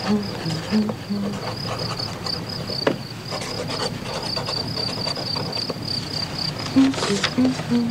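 High insect chirping in a quick, even rhythm, about four chirps a second, with a few soft low musical notes near the start and again near the end.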